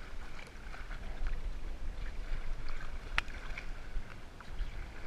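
Water sloshing and splashing around a dog wading in shallow water, heard from a camera strapped to the dog, over a steady low rumble, with scattered small splashes and ticks. One sharp click about three seconds in.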